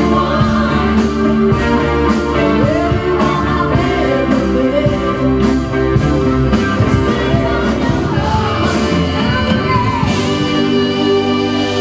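Live rock band playing with a woman singing lead into a microphone, over a drum kit keeping a steady beat of about two hits a second and keyboards holding chords.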